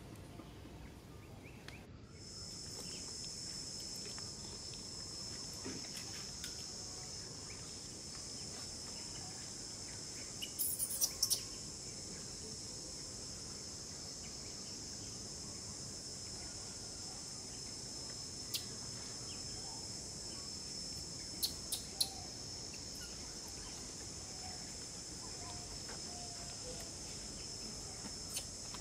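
Steady, high-pitched drone of insects that starts abruptly about two seconds in. A few brief sharp clicks or ticks stand out around the middle and again later.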